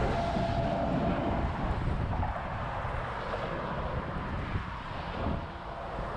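Motorway traffic on a high road bridge: an articulated lorry passes close by with its tyres and engine rumbling, loudest in the first couple of seconds, then the traffic noise eases as it moves away. Wind buffets the microphone throughout.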